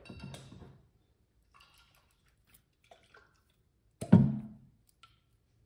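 Kitchen handling noise: a few faint taps, then one sharp knock about four seconds in with a short low ringing fade, as a bottle is brought over the mixing bowl.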